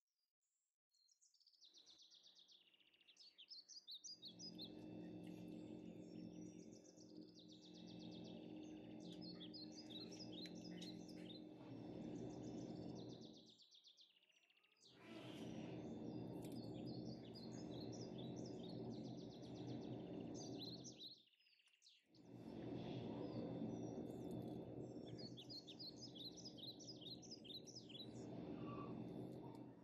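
Faint birdsong of rapid high chirps and trills, repeating over a steady low rumble of background noise. The sound drops out briefly twice, about halfway through and again about two-thirds of the way through.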